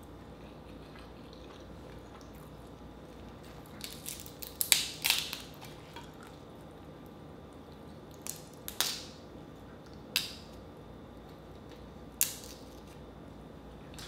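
Cooked Dungeness crab shell being cracked and pulled apart by hand: a quick cluster of sharp cracks about four to five seconds in, then single snaps every couple of seconds, over a faint steady room hum.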